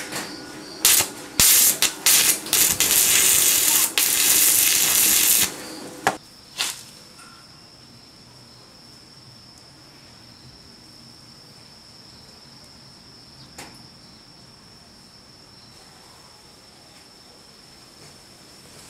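Stick arc welding on steel: a crackling, sizzling arc struck in a few short tacks, then held for a bead of about three seconds, with two more brief tacks about six seconds in. After that only a faint steady background with a thin high tone.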